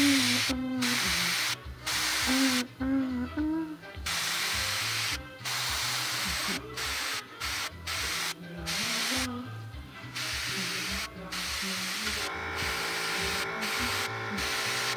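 Airbrush spraying paint, a hiss that starts and stops in many short bursts as the trigger is worked, over background music.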